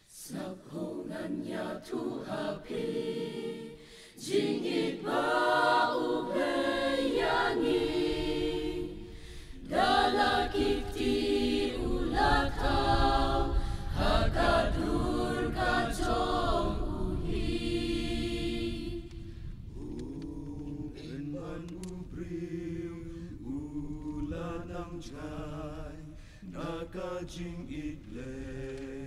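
Mixed choir of women's and men's voices singing. The voices come in suddenly, swell louder through the middle and sing more softly near the end.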